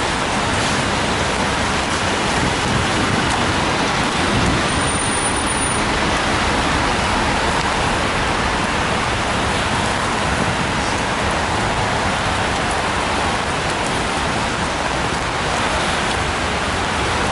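Steady traffic noise of cars and trucks on a wet road, tyres running on the water, mixed with rain falling on an umbrella held overhead.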